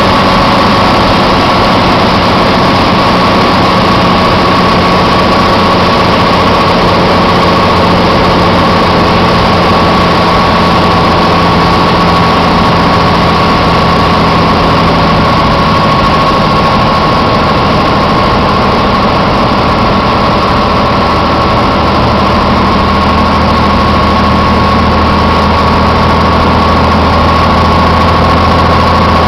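Light aircraft's engine and propeller running steadily on final approach to landing, heard from inside the cockpit, with a steady high hum over a low drone.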